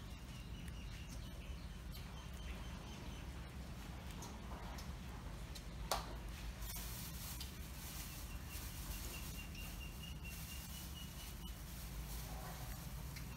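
Faint outdoor background: a steady low rumble with a thin, steady high whine that comes and goes, and scattered small clicks, one sharper click about six seconds in.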